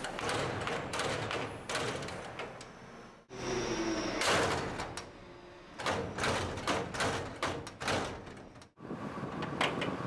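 A livestock trailer's rear door being slammed shut and its spring-loaded slam catch snapping closed on it, heard as repeated metallic bangs, clicks and rattles.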